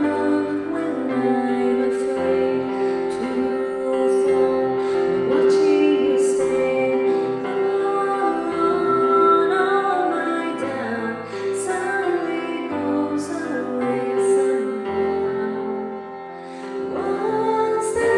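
Music: a woman singing a song with instrumental accompaniment, holding long notes.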